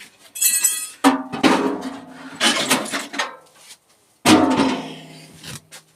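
Metal clanks and knocks from the stripped steel microwave casing and its parts being handled: a series of hard hits at uneven spacing, the first with a high ringing tone, the loudest about four seconds in with a long ringing tail.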